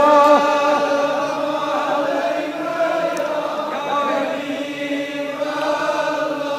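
Devotional darood chanting: a steady held note sounds throughout, with softer wavering voices over it in the middle.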